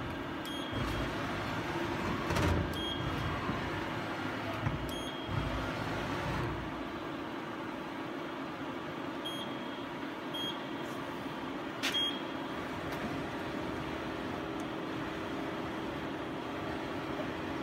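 Hyundai KIA SKT 21 LMS CNC lathe running, a steady machine hum under low thuds during the first six seconds as the tool turret indexes and moves. Several short high beeps and a sharp click about twelve seconds in.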